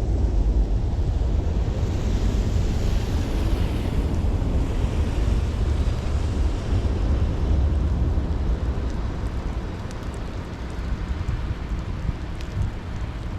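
Steady rain with a deep, continuous rumble underneath; the hiss swells for a couple of seconds near the start, then eases slightly toward the end.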